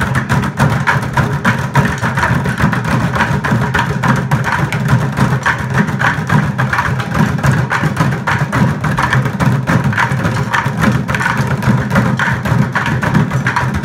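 A group bucket-drumming: many players beating plastic buckets with drumsticks together in a Batucada-style groove, a dense, continuous stream of strokes.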